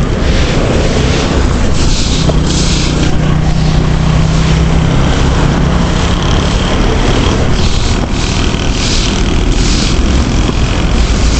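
Road traffic at a junction: motor vehicles running and passing, with a steady low engine hum for several seconds in the middle and the hiss of tyres swelling and fading as vehicles go by.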